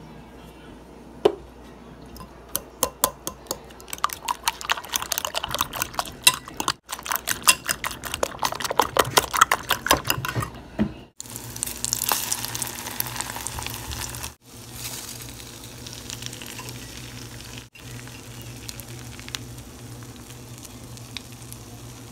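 Eggs with chopped onion, tomato and spices being beaten in a glass bowl, a fast run of clinks, then about halfway through egg-dipped bread slices frying in oil in a nonstick pan with a steady sizzle.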